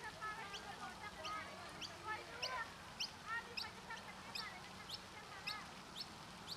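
Park ambience: a bird gives a rapid series of short, sharp high chirps, about three a second, over wavering calls and distant children's voices, with a steady fountain hiss underneath.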